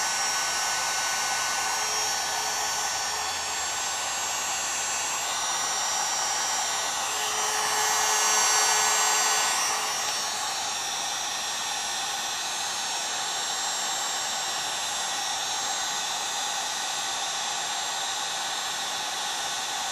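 Heat gun blowing steadily onto an aluminium chainsaw crankcase half, its fan and airflow a constant rushing hiss. It grows a little louder for a couple of seconds about seven seconds in. The case is being heated around the main bearing so it expands enough for the crankshaft to be pushed in.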